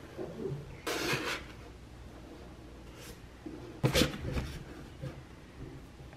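Books being handled on an IKEA Billy bookshelf: a brief scraping slide about a second in, then a sharp knock with a couple of lighter clicks about four seconds in as a book is pushed into place on top of a stack.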